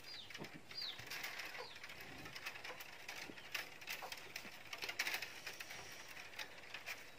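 Bamboo strips clicking and crackling against one another as a basket is woven by hand, in quick irregular ticks. A bird gives two short falling chirps in the first second.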